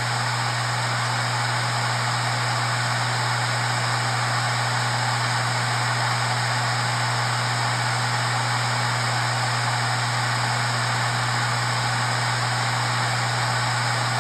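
Maxtor MaXLine Pro 500 (7H500F0) 7200 rpm 3.5-inch SATA hard drive running steadily at full speed. The spindle motor gives a constant low hum under an even airy whir from the spinning platters.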